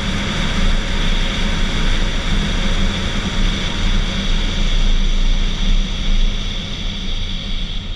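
Steady vehicle running noise: a low rumble with a hiss on top, as when driving.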